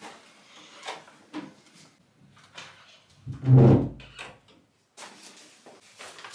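A room door opened by its handle with a few clicks, then shut with a loud thud about three and a half seconds in. A paper shopping bag rustles near the end.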